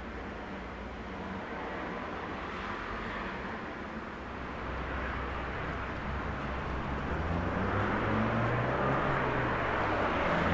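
Outdoor street traffic ambience. A low vehicle engine hum builds up and grows louder over the second half.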